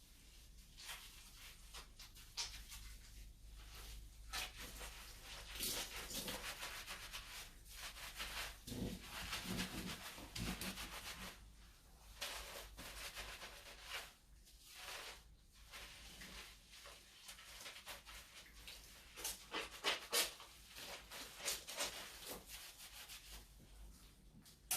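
Hands rubbing and scrubbing shampoo lather through long wet hair, a soft irregular stroke-by-stroke rubbing.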